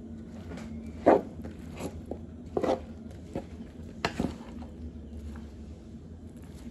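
Wooden spoon stirring and scraping couscous and cooked vegetables in a bowl, with a few sharp knocks of the spoon, the loudest about a second in.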